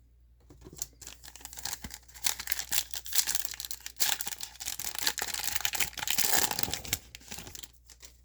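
Wrapper being torn open and crinkled by hand, a dense crackling rustle with many small snaps, loudest in the second half and stopping shortly before the end, as a pack of trading cards is opened.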